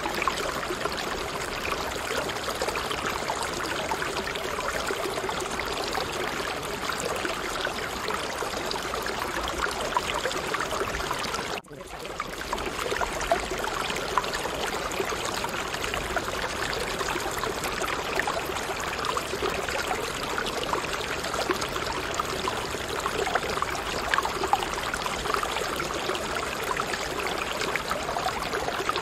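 Steady rushing sound of running water, with a sharp, brief dropout about twelve seconds in before it resumes.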